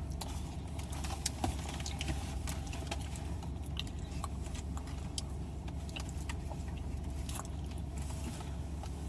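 Steady low hum of a car cabin with the engine running, with scattered small clicks and rustles from food packaging being handled while eating.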